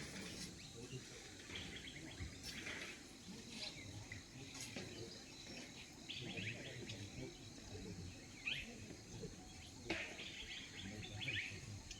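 Wild birds chirping and calling in short scattered bursts of high notes, over a faint steady low rumble.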